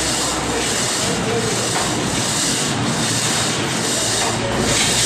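Hydraulic feed press machine running: a steady mechanical noise with a low hum, and a hiss that swells and fades repeatedly.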